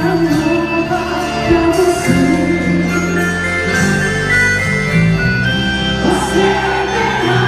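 Loud music for a quadrilha junina dance performance, with held bass notes under a melody and percussion.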